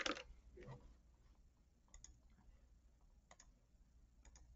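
Faint computer mouse clicks, four or five of them about a second apart, each a quick press-and-release click, over quiet room tone.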